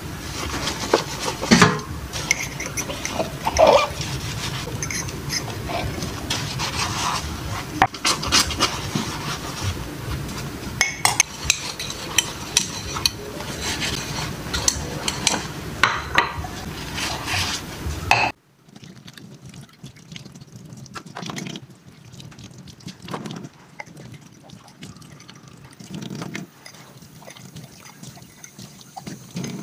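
Dishes being washed by hand at a stainless steel sink: plates, a mug and a spoon clinking and knocking, with sponge scrubbing and tap water. About two-thirds of the way through the clatter suddenly becomes much quieter, leaving occasional knocks and water.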